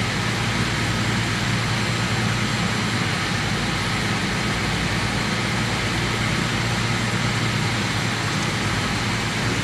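Machinery running steadily: a constant low hum with a faint high whine, unchanging throughout.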